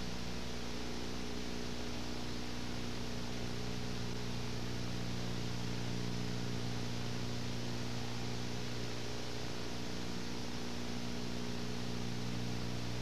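Steady electrical hum with a layer of even hiss and nothing else: the background noise of the recording, with no other sound.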